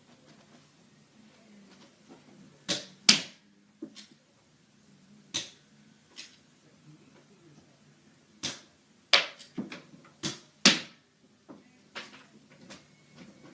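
Nerf pistol being primed and fired: a series of sharp plastic clicks and snaps, several in quick pairs, loudest about three seconds in and again around nine to eleven seconds in.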